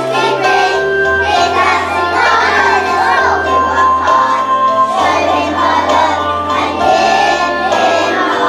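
A group of young children singing a song together over instrumental accompaniment with a bass line that moves in held notes.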